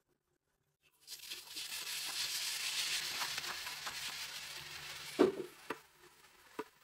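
Chopped onions and tomatoes sizzling in hot oil on a tawa: the sizzle starts suddenly about a second in and fades gradually. About five seconds in, a metal spatula knocks sharply against the tawa, followed by a few lighter clicks.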